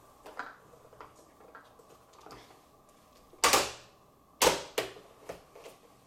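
Plastic clicks and clacks from the ladder of a toy fire truck being lowered and swung by hand, with two loud sharp clacks about a second apart past the middle, then a few lighter knocks.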